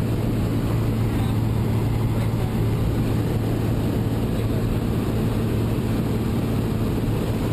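Light aircraft's engine and propeller droning steadily in flight, a constant low hum, with wind rushing in through the open side door.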